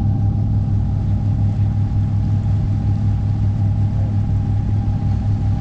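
Tour boat's engine running steadily under way: a constant low drone with a thin, steady higher whine over it and the rush of water along the hull.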